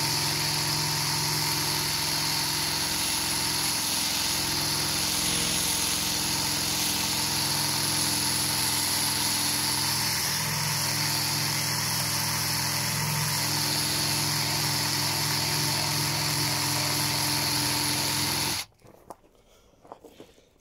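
Power tool fitted with a metal wire brush running steadily against a narrowboat's window frame, scouring off rust and flaky paint, then switched off about two seconds before the end.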